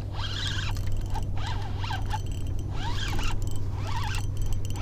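Spinning reel being cranked in short spurts while fighting a fish on a bent rod: a rasping, whirring mechanical sound that comes and goes about once or twice a second.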